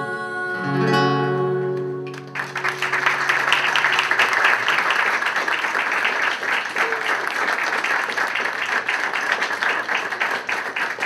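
An acoustic guitar rings out the last chords of a song, then about two seconds in an audience breaks into applause that keeps going.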